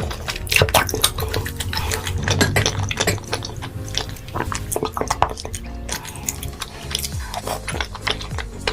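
Close-miked eating sounds: many quick crisp clicks and crackles of chewing and biting, with utensils clinking against dishes.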